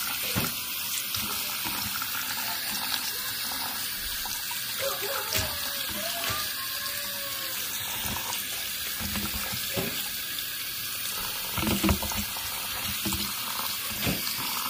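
Kitchen tap water running steadily onto tofu noodles in a plastic colander as they are rinsed by hand, with a few soft knocks as the hands press the noodles against the colander.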